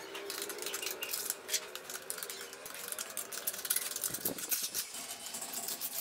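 Steel trowel scraping and tapping wet mortar against bricks and the rim of a stainless-steel washing-machine drum: a quick, irregular run of small scrapes and clicks.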